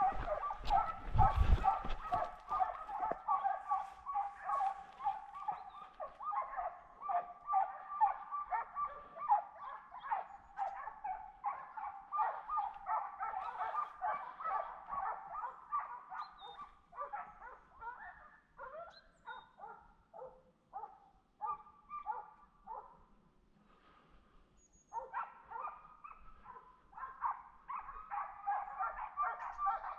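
A pack of hunting dogs barking rapidly and without a break, many voices overlapping. The barking thins out past the middle, stops for a couple of seconds about three-quarters of the way through, then starts up again. It is hounds giving voice while working wild boar in a drive hunt.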